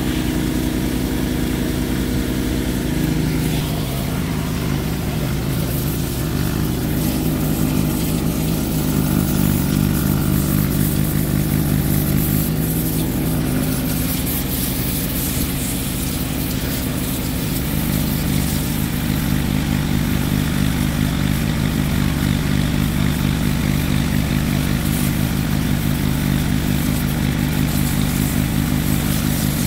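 Small engine-driven pressure washer running steadily, its water jet hissing against a Cummins 6BT diesel cylinder head being washed.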